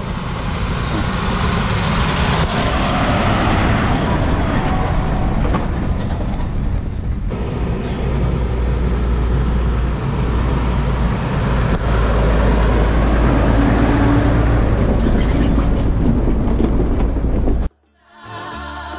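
Farm tractors driving past close by on a gravel road, one after another: a steady, loud diesel engine rumble with the noise of tyres and a laden trailer. It cuts off abruptly near the end and gives way to music.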